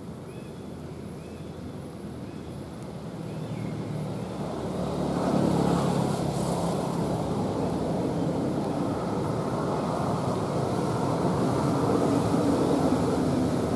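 An engine droning steadily, growing louder, with a marked rise about five seconds in, as it draws closer.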